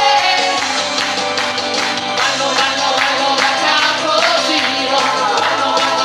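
Amplified live singing of an Italian pop song: a male lead voice with three women singing backing, over an instrumental backing with a stepping bass line.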